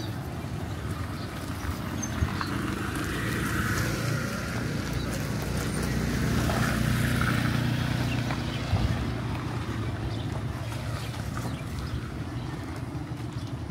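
Steady low hum of a running motor-vehicle engine, a little louder around the middle, over general street noise.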